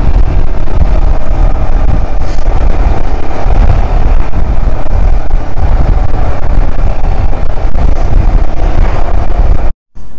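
Wind rushing over the microphone of a Royal Enfield Himalayan motorcycle on the move, with engine and road noise beneath; it cuts off suddenly near the end.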